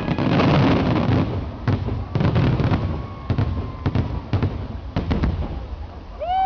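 Fireworks finale: a dense barrage of aerial shell bursts with booms and crackling, heaviest in the first second and again about two seconds in, then thinning to scattered bangs toward the end.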